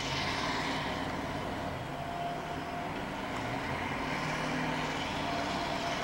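Plow pickup truck stuck in deep snow, its engine running and revving in two swells, one at the start and another about four seconds in, as it tries to drive out.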